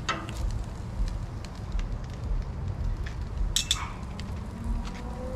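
Bacon sizzling and popping on a Blackstone propane flat-top griddle, with scattered crackles over a steady low rumble. Two brief falling-pitch sounds come at the start and about three and a half seconds in.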